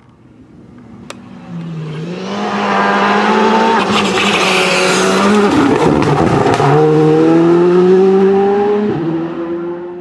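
Rally car engine under hard acceleration, growing louder as it approaches. Midway the revs drop with a cluster of sharp cracks as the car slows for a bend. It then accelerates again with rising pitch, changes gear near the end and fades away quickly.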